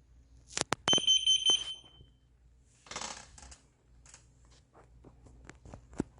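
Two sharp clicks, then a short, steady, high-pitched electronic beep lasting just under a second. A brief rustle follows a couple of seconds later, with scattered small clicks and taps.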